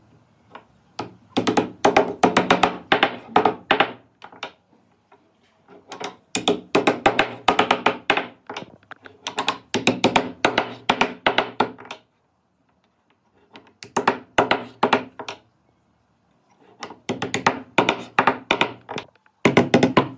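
Rapid series of sharp knocks, about four or five a second, in runs of a few seconds broken by short silences.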